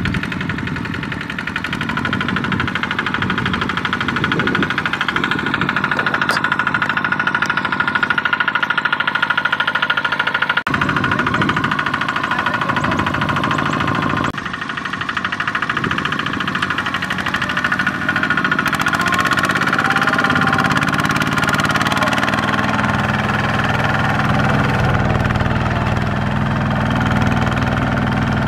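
Two-wheel walking tractor's single-cylinder diesel engine running steadily under load, hauling a loaded rice trailer on cage wheels through mud and stubble. The sound changes abruptly about 11 seconds and 14 seconds in.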